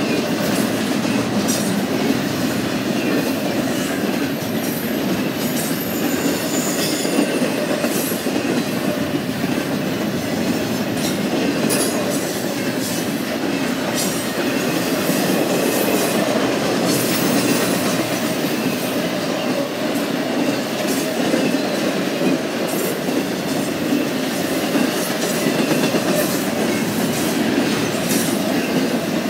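Double-stack intermodal well cars rolling past on the rails: a steady rumble of steel wheels on track with frequent clicks and clatter from the wheel sets. A faint high wheel squeal shows in the first several seconds.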